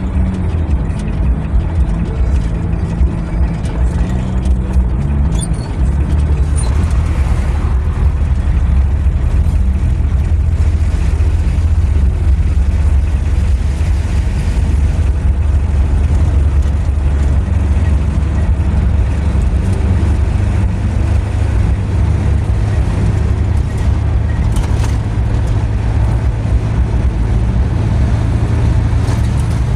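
Steady low rumble of a car's engine and tyres while driving, heard from inside the cabin. A faint engine hum stands out a little in the first few seconds.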